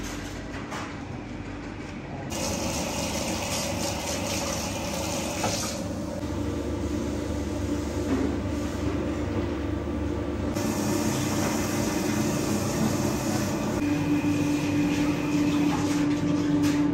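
Steady background noise of a commercial kitchen: a continuous mechanical hum and hiss of running machinery. Its character shifts every few seconds, and a low steady hum grows stronger near the end.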